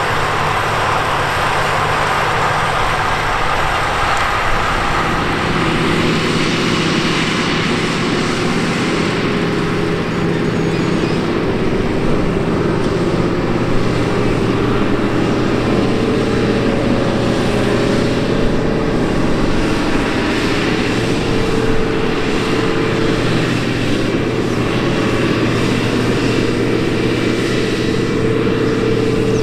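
Case IH Quadtrac 540 tracked tractor's diesel engine running steadily under load as it pulls a seven-shank subsoiler. It makes a continuous drone whose note shifts about four seconds in and again around the middle.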